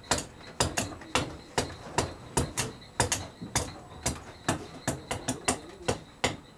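A large knife chopping a squash on a wooden table: sharp, hard knocks at about three a second.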